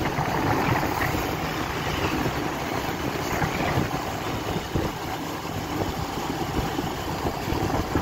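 Motorbike engine running steadily on the move, with wind rushing over the microphone.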